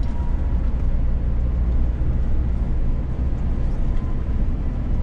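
Steady low rumble of a Scania S500 truck, its engine and road noise heard from inside the cab while driving.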